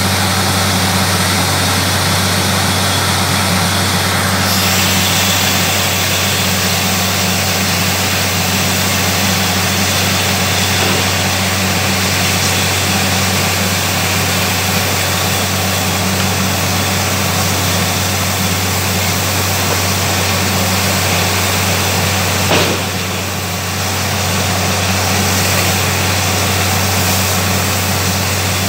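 Borewell drilling rig running steadily: the low hum of its engine and air compressor under a loud rush of compressed air blowing water and rock cuttings up out of the bore. A sharp tick and a brief drop in level come about three-quarters of the way through.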